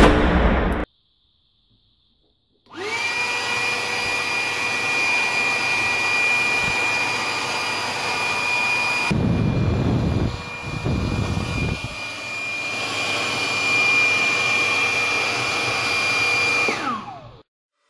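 Small electric fan motor of a homemade hand dryer spinning up with a rising whine, running steadily with a blowing sound, then switched off near the end and winding down with a falling whine. Midway, a low rumble of air buffeting for a few seconds as hands are held in the airflow. A short loud intro sound comes at the very start.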